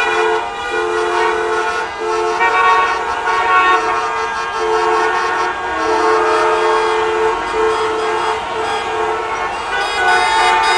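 Traffic jam with car horns honking over one another: long and short blasts at several different pitches, starting and stopping, over a constant background of traffic noise.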